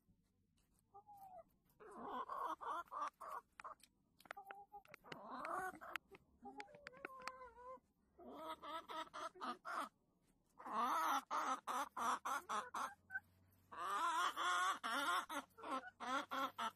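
Chickens clucking and squawking in a henhouse, with repeated bursts of overlapping calls that grow louder in the second half.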